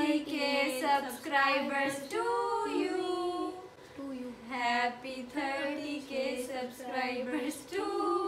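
Girls' voices singing a song together without accompaniment, in held, gliding notes.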